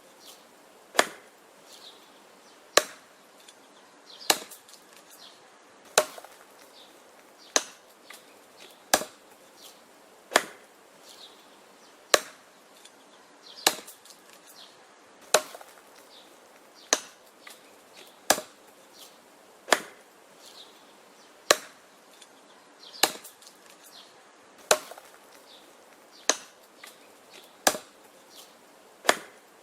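Wood being chopped: a sharp chopping strike about every one and a half seconds, in a steady rhythm, some strikes followed by a few faint knocks.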